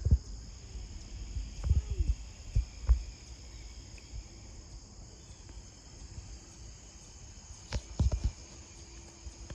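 Steady high-pitched chorus of insects, typical of crickets, with a few low thumps near the start, around two to three seconds in, and again near the end.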